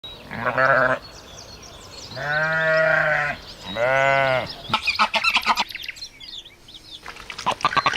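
A bleating animal calls three times in long, pitched calls, with small birds chirping faintly behind. About halfway through, a run of quick, clicky, rattling calls follows.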